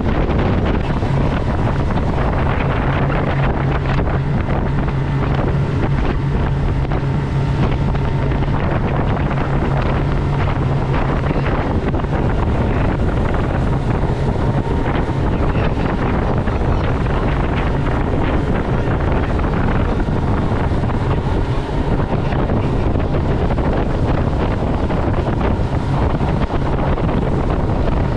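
A Carolina Skiff's outboard motor running steadily underway, a low hum that is strongest in the first half, under heavy wind buffeting on the microphone and rushing water.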